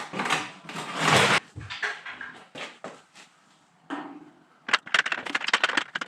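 Tools and parts being handled during motorcycle exhaust work: a few loud knocks and rustles, a quiet second, then a fast clicking, rattling clatter near the end.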